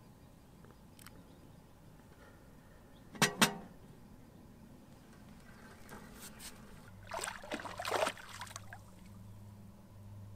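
Stainless steel camping kettle clinking sharply twice with a short metallic ring, then clattering against a small metal wood stove as it is set back down. A low steady hum comes in partway through.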